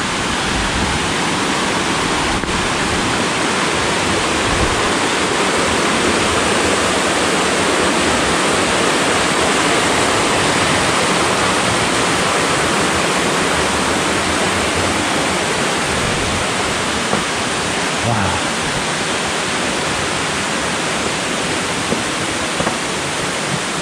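Mountain stream rushing over rocks: a steady wash of running water, a little louder in the middle.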